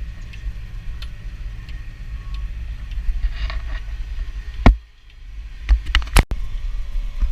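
Massey Ferguson tractor engine running steadily with a low rumble while pulling a big square baler. About four and a half seconds in comes a sharp knock and the sound briefly drops away, followed near the end by a few more sharp knocks.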